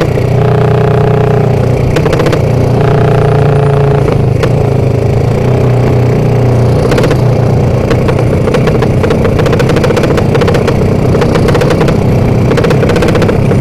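Loud open-exhaust 'sleep engine' drag-build motorcycle running hard under the rider. The engine holds two high notes in the first four seconds, then runs on at speed.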